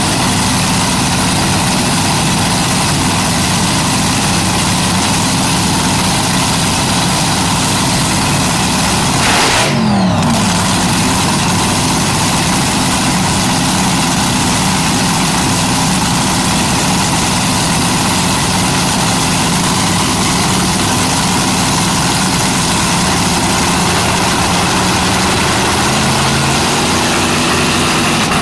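Nitromethane-fuelled Daimler V8 dragster engine idling loud and steady, with one brief rev about ten seconds in that falls back to idle.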